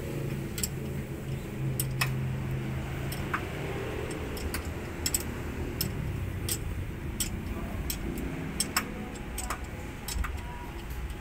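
Sharp metal clicks, about one or two a second at uneven spacing, from a socket wrench turning a cylinder head bolt into a damaged engine-block thread. The bolt's tip is ground into a grooved cone so that, as it is worked in, it scrapes leftover drilling debris out of the thread and recuts it. A low hum sits underneath for the first three seconds or so.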